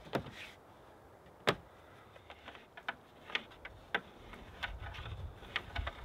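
Wood knocking on wood as a hewn plank window sill is handled and set on the log wall: one sharp knock about a second and a half in, then a scatter of lighter taps and clicks. From about four and a half seconds in, a low rumbling rustle joins them.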